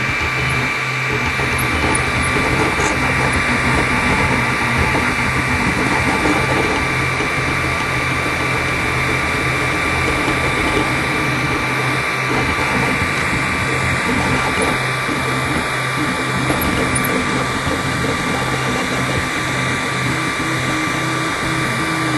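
3D printer running a print: its stepper motors whir and buzz, shifting in pitch as the print head moves, over a steady high-pitched whine.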